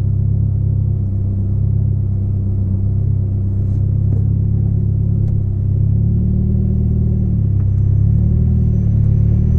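Volvo 440's four-cylinder engine running at low revs through a broken, leaking exhaust, giving a loud, steady, deep rumble. The engine note rises slightly about six seconds in.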